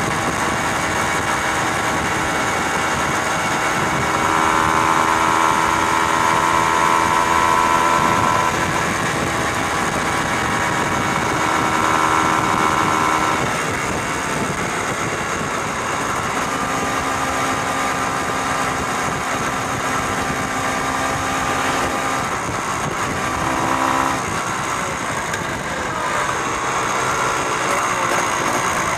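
Vehicle engine running at road speed under a steady rush of wind and road noise; its pitch shifts a few times, about 4, 13, 16 and 24 seconds in.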